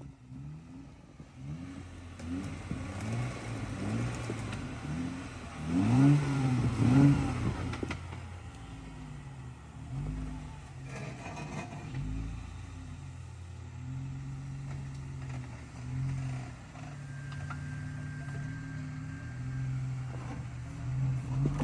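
Modified 2013 Jeep Wrangler JKU's engine revving in repeated surges as it crawls up a rock ledge, loudest about six seconds in, then running steadier at lower revs.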